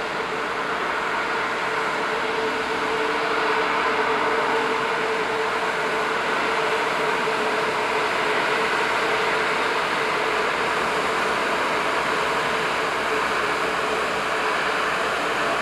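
High-speed catamaran ferry's MTU diesel engines and Kamewa waterjets running under power as it pulls away: a steady machine drone over the hiss of churned water, growing louder over the first few seconds, with a held whining tone that fades out past the middle.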